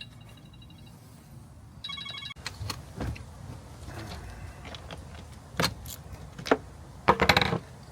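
Scattered sharp metallic clicks and knocks of hand tools and battery wiring parts being handled, with a loud cluster of clanks near the end. A brief rapid, pulsing electronic ring sounds about two seconds in.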